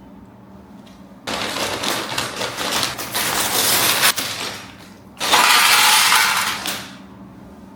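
Loose plastic Lego Technic pieces clattering in two spells, a dense rattle of many small hard clicks.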